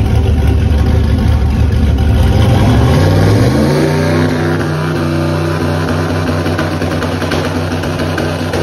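Turbocharged LS V8 in a Mustang running: a low, even engine note that rises to a faster steady speed about three seconds in and holds there.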